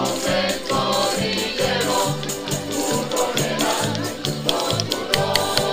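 Canarian folk group playing and singing: strummed guitars and lutes keep a steady rhythm under a moving bass line while several voices sing together.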